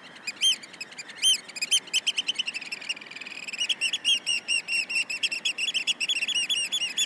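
Small bird chirping: a few separate high chirps at first, then a quick run of chirps, several a second, from about halfway through.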